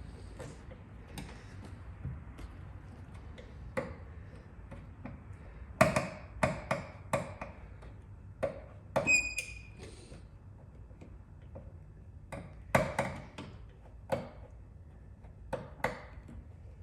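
Paintless dent repair tools working a dent in a truck's sheet-metal bed rail: irregular sharp taps and clicks, about eighteen in all, coming in small clusters, with a brief metallic ring about nine seconds in.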